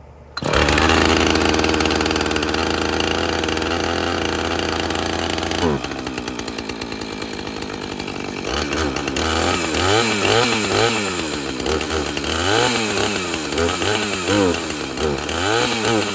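Husqvarna 450 Rancher two-stroke chainsaw firing up and running at a steady fast idle on its choke setting for about five seconds, then dropping to a lower, uneven idle. From about eight seconds in it is revved up and down repeatedly, roughly once a second.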